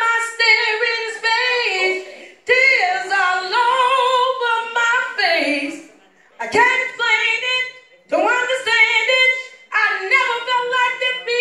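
A woman singing unaccompanied, in phrases of a few seconds with wavering, held notes and short breaks between them.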